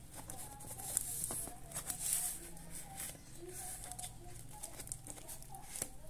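Cardboard parcel wrapped in packing tape being cut open with scissors and handled: irregular scraping, rustling and small clicks of cardboard and tape.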